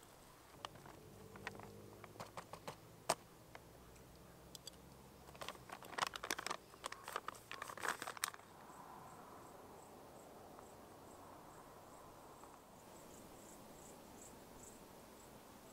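Foil pouch of a ready-made trail meal crinkling and rustling as it is handled, with scattered clicks early on and a dense burst of crinkling from about six to eight seconds in. After that a faint insect chirps in a regular series of high ticks.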